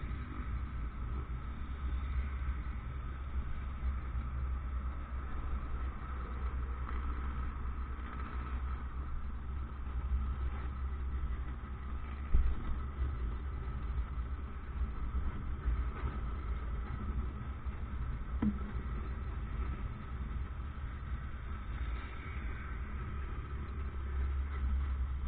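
Motorcycle engine running steadily with street traffic around it, under a constant low rumble. There is a short bump about twelve seconds in.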